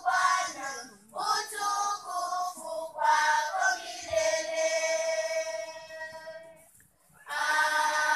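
Children's choir singing a song, holding one long note in the middle and breaking off briefly about seven seconds in before singing on.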